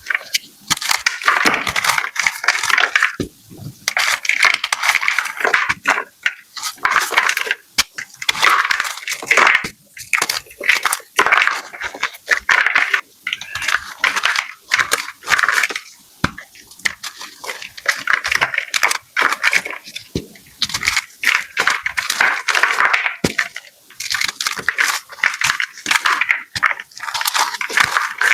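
Blocks of gym chalk being crushed, crunching and crackling in repeated bursts with short pauses between them.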